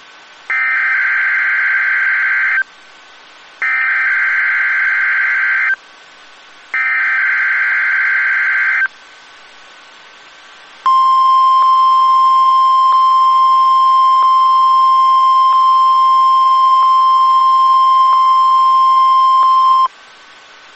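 NOAA Weather Radio alert tones for a weekly test: three bursts of warbling SAME digital header data, each about two seconds long and a second apart, then the steady 1050 Hz warning alarm tone held for about nine seconds before it cuts off.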